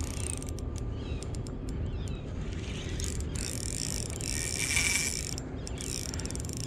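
Fishing reel ratcheting in rapid clicks under the load of a hooked queenfish being fought on a light jigging rod.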